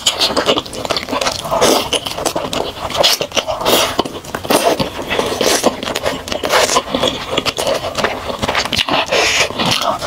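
A person eating a shell-on prawn coated in chili oil, close to the microphone: a dense run of wet mouth clicks, bites and sucking sounds.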